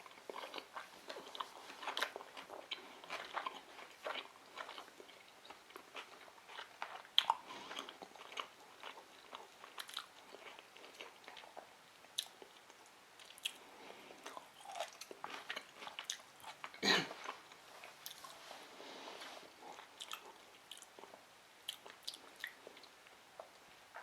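Close-up chewing and biting of sushi rolls, with many small mouth clicks throughout. One louder sound comes about two-thirds of the way in.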